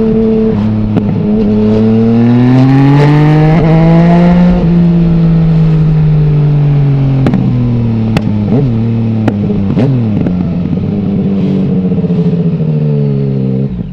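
Yamaha MT-09's three-cylinder engine through an Akrapovic full-system exhaust with no dB killer. It rises in revs for a couple of seconds, then eases off, with sharp pops and crackles from the exhaust on the overrun. The sound fades out at the very end.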